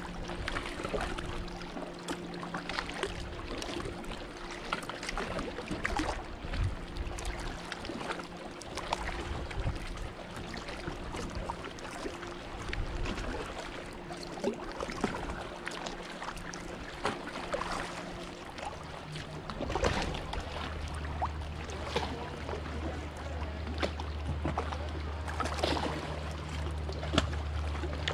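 Kayak paddle strokes in calm river water: irregular small splashes and drips, with water lapping at the hull. A steady low hum runs underneath and drops lower about two-thirds of the way through.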